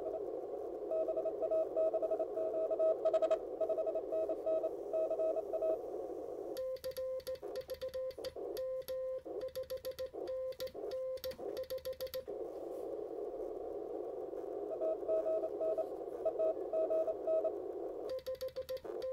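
NorCal 40A QRP CW transceiver receiving on 40 metres: band hiss through its narrow CW filter with a faint Morse code signal keyed in it. About six seconds in, the hiss cuts out and a clean, louder Morse sidetone keys for about six seconds as the station transmits. Then the hiss with faint incoming Morse returns, and the sidetone starts keying again near the end.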